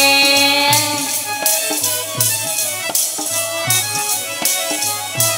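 Harmonium, dholak and chimta playing the instrumental passage of a Punjabi devotional song. A held sung note ends about a second in, then the harmonium carries the melody over steady dholak strokes and the chimta's jingles clashing on the beat.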